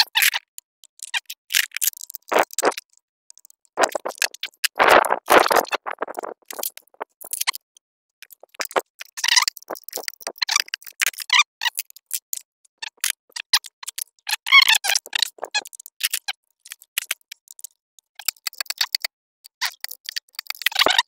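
Intermittent metallic clicks, rattles and scrapes of a chainsaw's guide bar and chain being handled and fitted onto a Husqvarna 372XP powerhead, with a longer scraping stretch about five seconds in.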